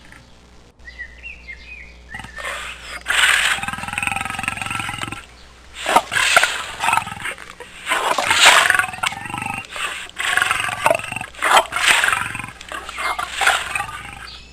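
Big cat roaring, about five harsh roars in a row with short gaps between them.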